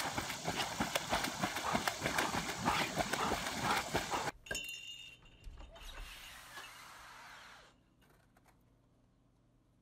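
Dogs splashing in pond water: a dense run of loud, irregular splashes for about four seconds. It then cuts to a faint sound and falls to near silence for the last couple of seconds.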